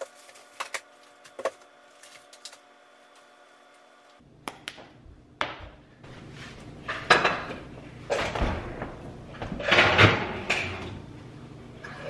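Metal loaf pans knocking and scraping against a gas range's grates and oven rack as the oven door is opened, a string of clatters loudest in the second half. Before that, a few light taps from a hand-held sugar shaker.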